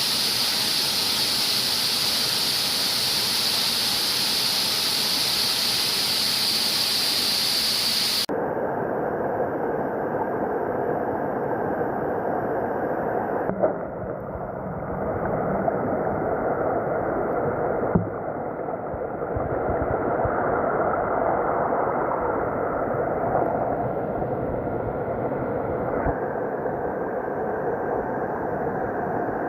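Waterfall: a steady rush of falling water. It sounds bright and hissy at first, then duller after a cut about eight seconds in.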